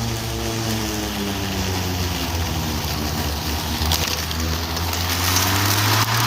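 A HART 20V 16-inch cordless electric lawn mower runs while mulching long, damp grass. The steady motor-and-blade hum sags in pitch about a second in as the blade loads up in the thick grass, then picks back up near the end, over the hiss of cut grass.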